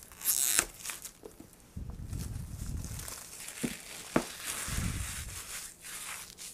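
Plastic shrink wrap crinkling as it is pulled off a cardboard box, followed by the box being handled and shuffled on the table, with a couple of sharp clicks.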